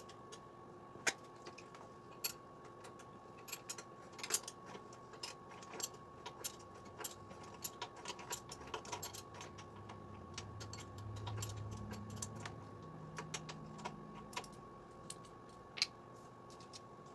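Irregular light clicks and clatter of hand work on a moped: plastic body panels, fasteners and wiring being handled during disassembly, over a faint steady high hum.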